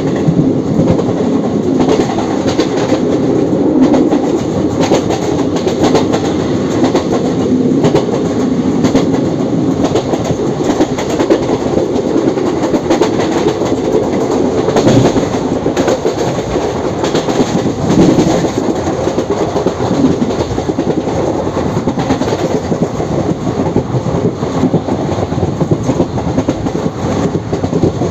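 Indian Railways ICF passenger coaches running on the track: a steady rumble of steel wheels on rail, with repeated clicks and knocks as the wheels pass rail joints.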